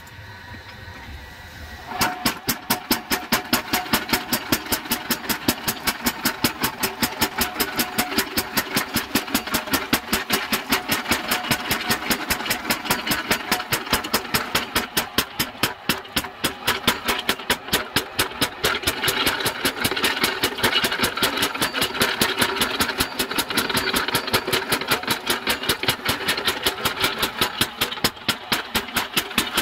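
Belt-driven mechanical power hammer with its motor running. About two seconds in, the ram starts hammering hot iron at a steady four to five blows a second, cutting through the bar.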